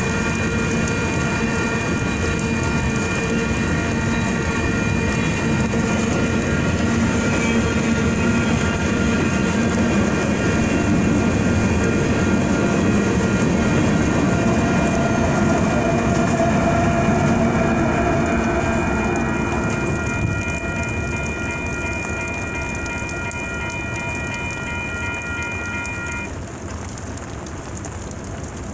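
Freight train rolling through a grade crossing, its tank cars and covered hoppers clattering over the rails, with a Union Pacific diesel locomotive passing about midway when it is loudest. The crossing's WCH Type 2 electronic bells ring steadily throughout. The train noise fades at about 20 seconds, and the bells stop a couple of seconds before the end, leaving the hiss of rain.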